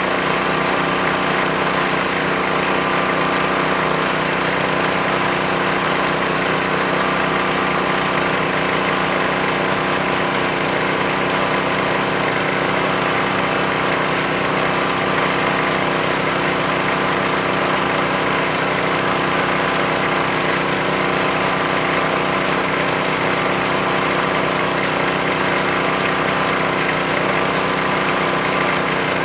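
Engine of a bore-well drilling machine running steadily at a constant speed.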